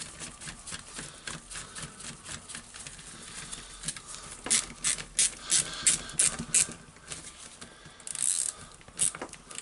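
A small screw being driven by hand into the plastic housing of a rotary hammer drill: a steady run of ratchet-like clicks, about three a second, louder about halfway through. A short scrape of hands on the housing comes near the end.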